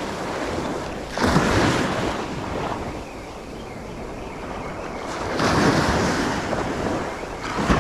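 Small surf waves breaking and washing up the sand at the water's edge. Two waves swell up, one about a second in and one about five seconds in.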